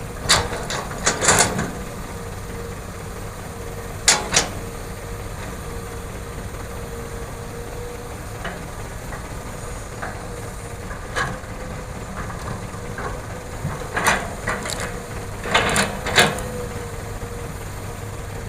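Hitachi hydraulic excavator's diesel engine running steadily, with sharp knocks and clatters of the bucket and soil every few seconds, several in close succession near the end.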